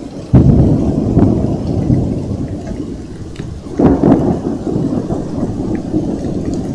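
Thunder: a sudden loud clap about a third of a second in that rumbles on, then a second loud peal about four seconds in, over steady rain and scattered drips.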